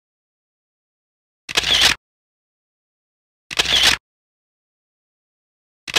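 Camera shutter sound effect, three times about two seconds apart, each about half a second long, with dead silence between.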